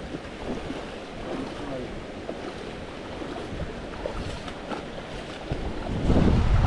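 Steady outdoor rush of wind and water with faint distant voices. About six seconds in, wind starts buffeting the microphone in loud low rumbles.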